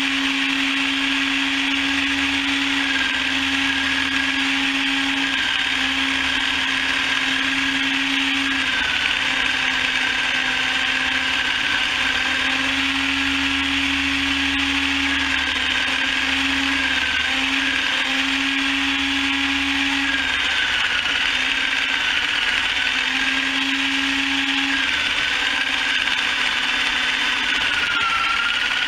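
Motorised chicken plucker running steadily with a continuous whir, a low hum that cuts in and out and a whine that dips slightly in pitch now and then.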